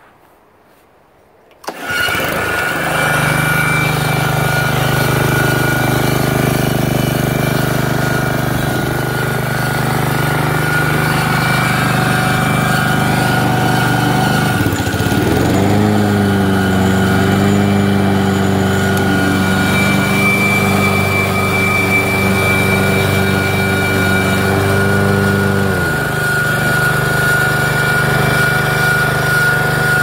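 Brand-new Honda HRX217HYA lawn mower's single-cylinder engine starting about two seconds in and running steadily, with a thin high whine riding over it. About halfway through its note shifts and a deeper hum joins for about ten seconds, then drops out again. The owner calls the noise awful and suspects a bad blade clutch unit.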